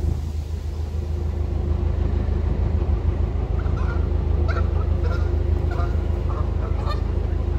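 Narrowboat diesel engine running at a steady cruising beat, a low drone heard from the stern, with a few faint short high chirps over it in the second half.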